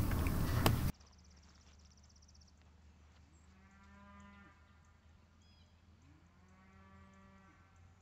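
Two faint, drawn-out farm-animal calls, each about a second long and a couple of seconds apart, each holding one steady pitch that lifts at the start and drops away at the end.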